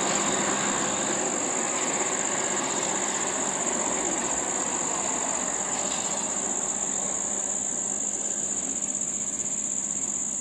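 Steady high-pitched insect drone, over the fading engine noise of a small vehicle driving away.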